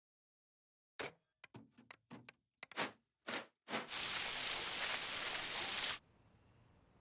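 A handful of short knocks and clatters, then a garden hose nozzle spraying water hard for about two seconds, cutting off suddenly.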